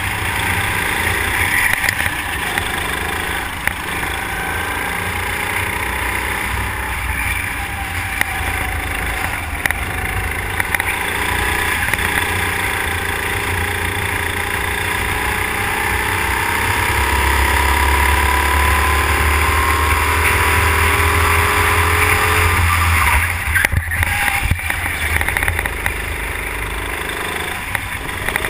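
Go-kart engine heard from an onboard camera while racing, with wind rushing over the microphone. The engine pitch climbs steadily for several seconds along a straight, then falls away abruptly as the throttle is lifted for a corner.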